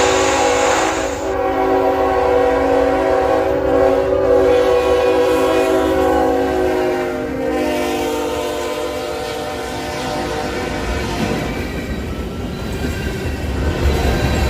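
A freight locomotive's air horn sounding a long, steady chord over the rumble of the passing train, fading out about halfway through while the train keeps rolling by. A loud hiss cuts off about a second in.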